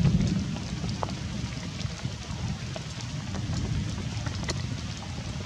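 Steady rain hiss with a low rumble that is strongest at the start and eases off within the first second, and a few faint ticks.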